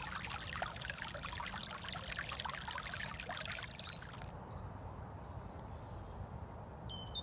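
Floodwater running and splashing, a dense bright crackle of water. About four seconds in it cuts off sharply to a duller, steady rush of water with a low rumble underneath.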